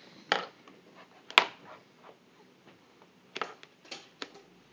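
A metal baby spoon clicking and tapping against a plastic high-chair tray and bowl: a few scattered sharp taps, the loudest about a second and a half in.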